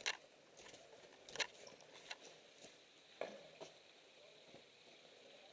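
Footsteps in approach shoes on snow and rocky ground: a handful of short, irregular steps.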